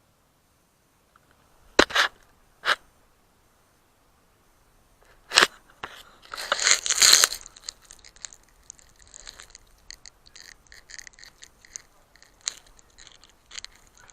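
A few sharp knocks, then a burst of crunching, scraping rustle close to the microphone, trailing off into scattered small clicks.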